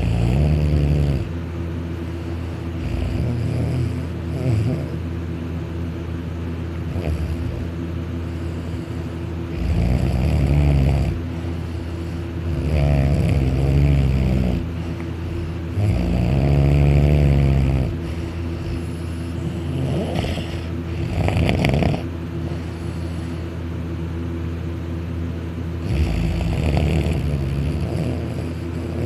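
A man snoring loudly while asleep on his back with his mouth open: about six drawn-out snores a few seconds apart, some of them pitched, over a steady low hum.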